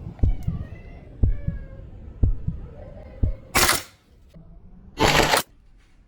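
Dull low thumps about once a second with faint chirps, then two short, loud bursts of fire from a gas blowback airsoft rifle, about three and a half and five seconds in.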